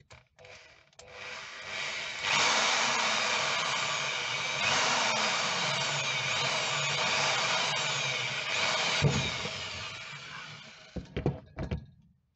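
Electric drill with a 6 mm bit boring through the centre of a bottle cap. The motor winds up over the first couple of seconds, runs steadily for about eight seconds, then winds down. A few sharp knocks come near the end.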